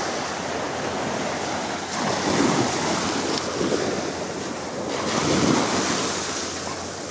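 Small sea waves washing in and out over a pebbly shoreline, the wash swelling twice, about two and five seconds in.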